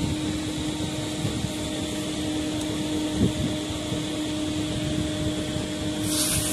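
Steady machine hum with a constant low tone and a single light knock about three seconds in. About six seconds in, an aerosol spray can starts hissing as it sprays into the open injection pump.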